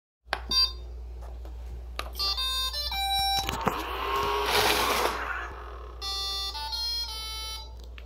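iRobot Roomba Discovery robot vacuum playing a short tune of beeping tones, then its drive, brush and vacuum motors running for about a second and a half. Near the end it plays a second run of tones: the "please charge" error, the battery nearly depleted.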